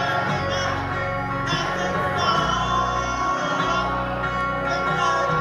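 Live rock band playing loud, with electric guitars, drums and a singer.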